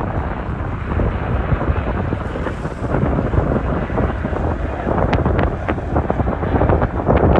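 Strong wind buffeting the microphone: a heavy, low rumble that gusts up and down, with rough crackles from about five seconds in.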